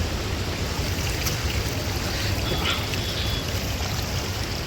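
Steady rush of waterfall water, with wind rumbling on the microphone.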